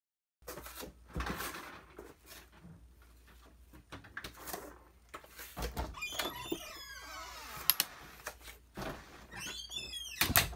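Faint handling noises in a kitchen: scattered knocks and rustles, with squeaky, wavering sounds about six seconds in and again near the end, then a sharp click.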